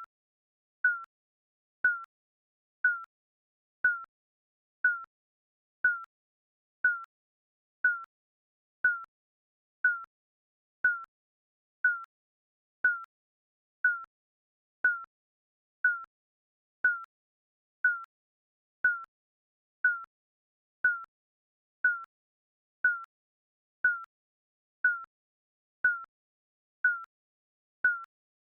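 Digital countdown timer beeps: a short, high electronic blip once every second, evenly spaced and unchanging, marking each second of the count.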